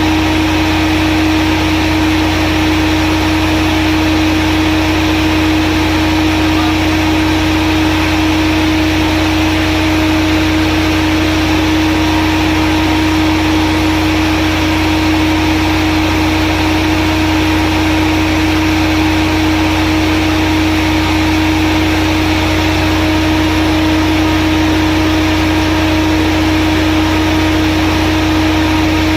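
A 150 kVA diesel generator with a Volvo engine runs at constant speed after an automatic start. It makes a steady, unchanging drone with a strong hum.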